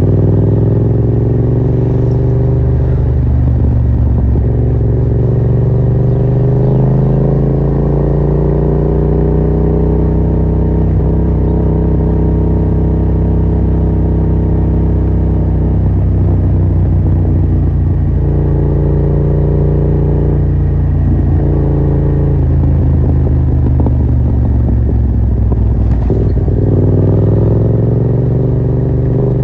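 Yamaha MT-07's 689 cc parallel-twin engine through a Yoshimura R77 exhaust with the dB killer removed, running under way on the road. The engine note sinks slowly at first, holds fairly steady, dips again a little past the middle and climbs near the end.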